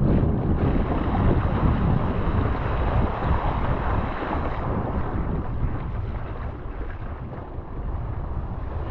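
Wind buffeting the microphone over water rushing and splashing past a surfski's hull in choppy waves, easing off somewhat in the second half.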